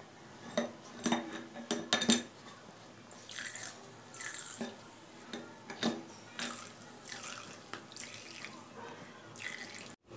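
Coconut milk trickling and splashing from a squeezed muslin cloth through a steel mesh strainer into a bowl, with several sharp clicks in the first couple of seconds.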